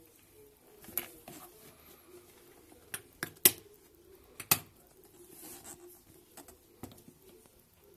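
A handbag being handled, giving scattered sharp clicks and taps, the two loudest about a second apart near the middle, over a faint steady hum.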